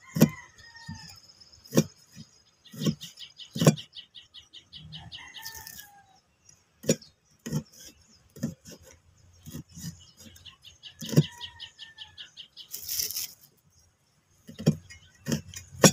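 Cleaver chopping chili on a cutting board: irregular sharp knocks, about one to two a second, pausing near the end. Chickens cluck in the background, and a fast high chirping trill comes twice.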